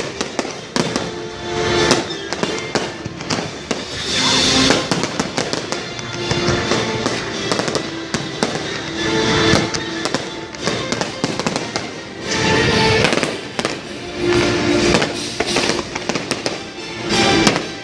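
Fireworks show: many bangs and crackling bursts over loud accompanying music.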